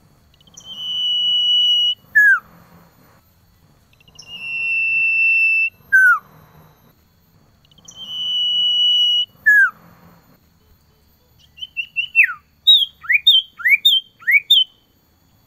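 Male common iora singing a call to a female. Three times it gives a long, steady whistle of about a second and a half, each followed by a short down-slurred note. Near the end comes a quick run of short chips and about four sharp falling notes.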